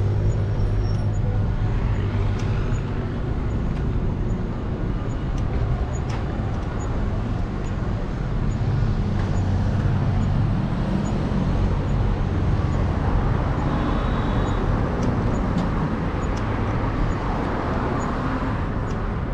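City street traffic: a steady rumble of cars and engines on the road alongside, with an engine humming close by at the start and vehicles swelling up as they pass.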